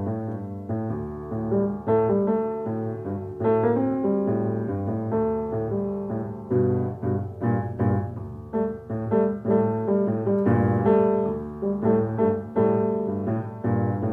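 Piano music: chords over a moving bass line, notes struck and decaying at a moderate pace.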